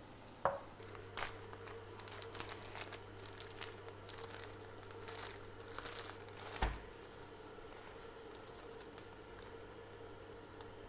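Plastic spaghetti packet crinkling and rustling as it is handled and opened, in a run of short crackles. A single knock about six and a half seconds in. A faint steady hum underneath.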